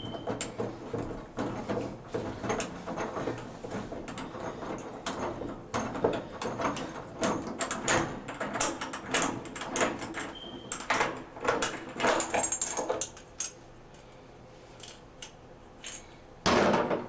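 Metal tools clinking, clicking and knocking against a tub and shower valve as a tub socket wrench works out the shower diverter stem. A short, loud burst of noise comes near the end.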